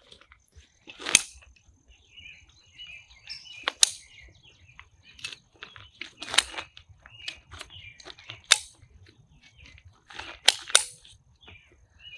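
CLIQ camping chair being unfolded: its folding legs and frame snap into place with about half a dozen sharp clicks spread through, with the nylon seat fabric rustling between them.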